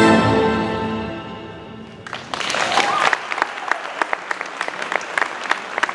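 A held chord of orchestral music fades out over the first two seconds. Then an audience breaks into applause, with a brief cheer near the start of it.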